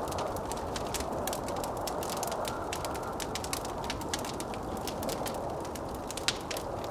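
Wood fire crackling with many small sharp pops and one louder pop near the end, over the steady rush of blizzard wind.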